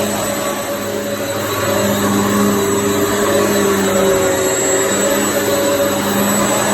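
Hoover EliteSwivel vacuum cleaner running steadily, a loud rushing hiss with a motor hum that wavers slightly in pitch.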